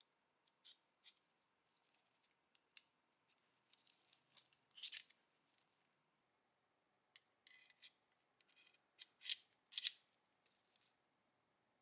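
Sparse metal clicks and short scrapes from a Beretta M1934 pistol's slide being worked onto its frame over the recoil spring by hand; the loudest clicks come about five seconds in and again near the end.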